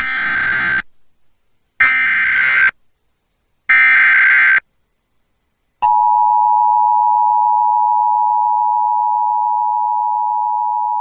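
Emergency Alert System alert opening: three bursts of the SAME digital header, each about a second of harsh data screech, separated by about a second of silence. About a second after the third burst the steady two-tone EAS attention signal starts and holds.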